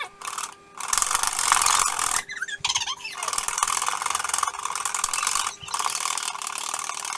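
A whisk beating egg whites in a bowl toward stiff peaks: a steady mechanical whirring and rattling, broken by several brief pauses.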